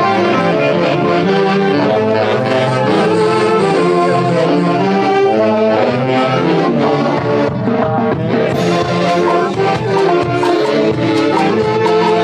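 Festive Andean orchestra music led by brass and saxophones, playing a melody in dense sustained notes.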